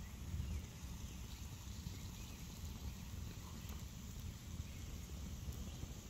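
Small wood campfire burning, with a few faint crackles over a low, uneven rumble.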